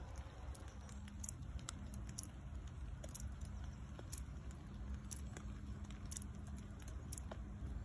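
Foam at the foot of a tree trunk crackling faintly as its bubbles pop, heard as scattered small ticks and pops over a low steady rumble.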